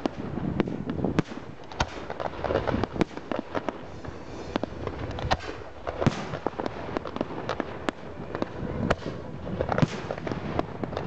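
Fireworks display going off in a dense, continuous run of bangs and crackles from bursting shells, with no pause.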